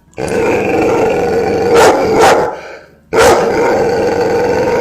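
A dog growling in two long growls, each a couple of seconds, with a few short barks breaking through.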